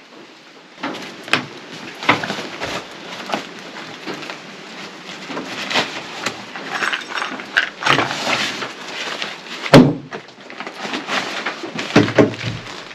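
Rain gear being taken off and handled: nylon fabric rustling, with irregular knocks and one sharp knock about ten seconds in.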